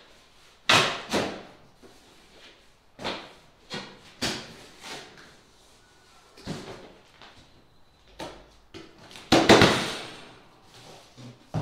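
Kennel parts and their box being unpacked and handled: a string of irregular knocks, bumps and clatters, with a louder scraping rush lasting about a second near the end.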